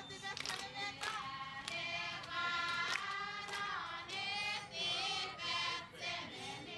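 A group of women singing a chant together, with sharp hand claps now and then.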